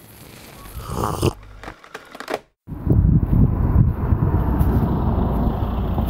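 After a brief drop to silence about two and a half seconds in, a steady low rumbling noise starts abruptly and carries on.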